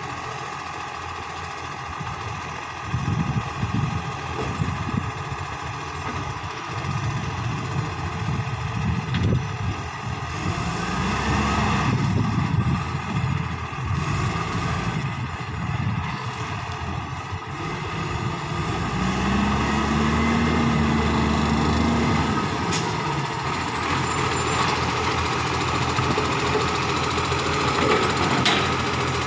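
Iveco side-loader garbage truck's diesel engine running and revving up and down as the truck drives up, with short hisses of air near the end.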